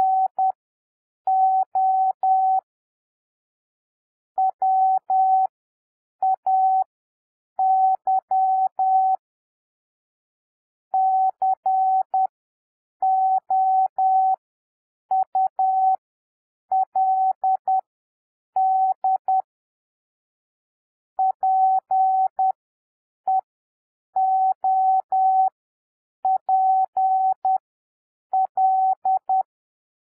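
Morse code keyed as a single steady electronic beep in short dits and longer dahs. Characters are sent at 10 words per minute, with wide gaps between them for a 7 WPM overall speed (Farnsworth spacing). It spells out 'no way could' and the start of 'people'.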